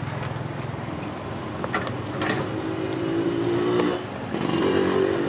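A motor vehicle engine running close by, rising in pitch about two and a half seconds in and again near the end. A couple of sharp clicks about two seconds in come from plastic clamshell takeaway boxes being handled.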